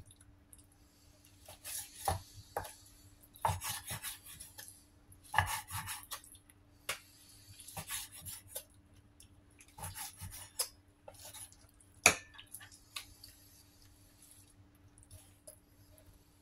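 Large kitchen knife cutting raw chicken thigh on a round wooden chopping block: irregular knocks of the blade on the wood with some scraping, one knock about three-quarters through sharper than the rest.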